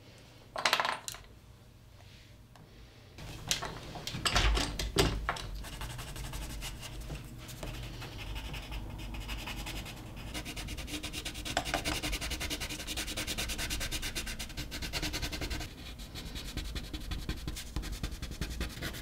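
Coloured pencil scratching across paper in quick back-and-forth shading strokes, a dense steady scribble from about six seconds in. Before that come a few short knocks and rubs of handling.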